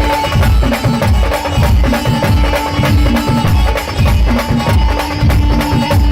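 Marathi band music with a steady, heavy drum beat about twice a second under long held melody notes.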